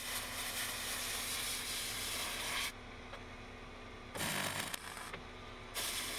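Compressed-air blowgun hissing in three blasts onto a fresh spot weld on a steel body panel: a long one, a short one about four seconds in, and another near the end. The air is cooling each weld so the panel does not distort.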